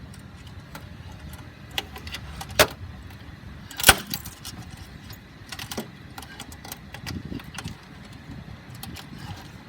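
Metal clicks and clinks as the access panels of an Airbus A350 XWB engine nacelle are handled and fitted with their spring-loaded latches. There are two sharper snaps: one between two and three seconds in, and a louder one about four seconds in. A steady low hum runs underneath.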